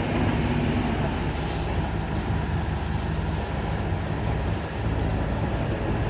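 Hydraulic excavator's diesel engine running steadily, a low, even drone with a broad noisy rush above it.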